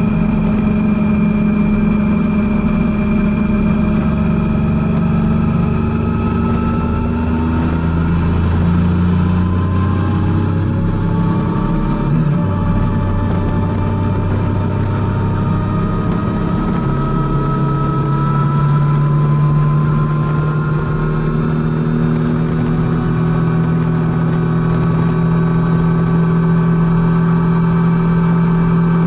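Triumph Tiger 800's inline three-cylinder engine running while riding, its pitch drifting slowly with the throttle and jumping up suddenly about two-thirds of the way through.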